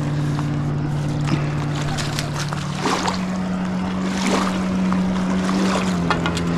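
A motorboat engine running steadily: a low hum at a constant pitch that steps up a little about three seconds in. Faint scattered clicks and rustles sit over it.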